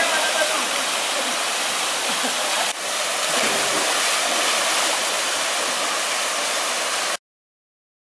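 Small waterfall pouring off a boulder into a pool: a steady, dense rushing of falling water, with a brief dip about three seconds in. It cuts off suddenly near the end.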